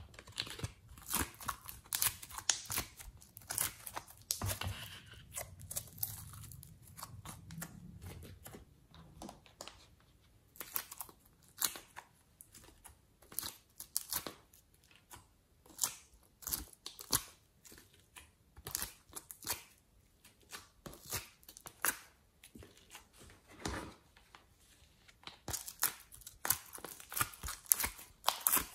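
Thin plastic mold trays crinkling and clicking as soft clay shapes are pressed and peeled out of their cavities, a run of irregular sharp crackles. A low rumble from the trays being handled comes in briefly near the start.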